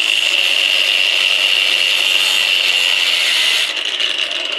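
Small electric angle grinder running under load, cutting through metal with a steady high whine and hiss; it eases off a little near the end.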